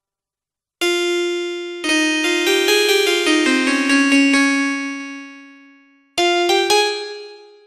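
Yamaha PSR-E453 portable keyboard playing one of its built-in voices, a bright struck-note sound. A single note comes about a second in, then a short phrase of notes that ring and slowly die away, and two more notes near the end.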